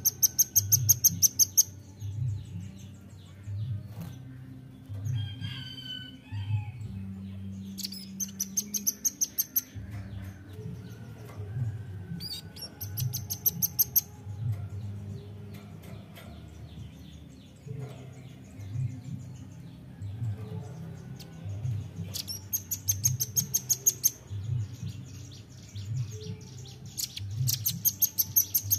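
Velvet-fronted nuthatch calling in rapid high-pitched trills of hard, even notes, each lasting a second or two, given five times with pauses of several seconds between.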